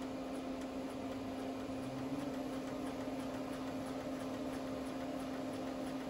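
Lathe power-feed stepper motor turning the leadscrew and driving the carriage along the bed: a steady hum with one even tone.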